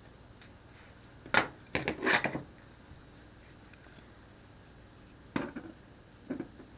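Small hard parts and tools clicking and clattering on a work surface during a phone teardown: a few separate knocks, with a quick cluster of clicks about two seconds in.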